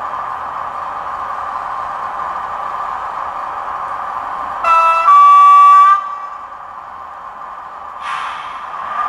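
HO-scale model train's horn sounding: a short blast, then a longer one of about a second, over the train's steady running hum. A brief hiss comes near the end.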